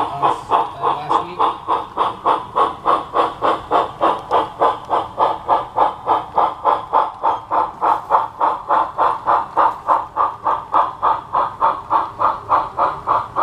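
Steam-locomotive exhaust chuffs from a model Erie L-1 0-8-8-0 camelback, a steady even beat of about three chuffs a second as the locomotive pulls away.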